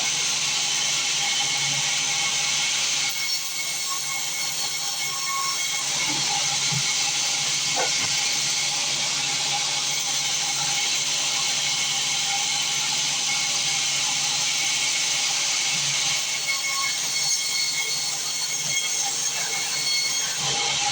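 Sawmill band saw running, a steady harsh hiss with a few steady whining tones from the blade and machinery. The hiss is thinner through the middle stretch and fuller again near the end.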